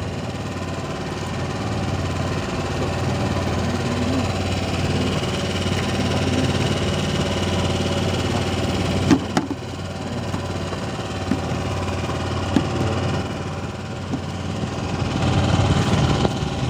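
A small engine idling steadily on a fishing boat, with a sharp knock about nine seconds in. Near the end it grows louder and noisier as wet net is hauled up out of the water.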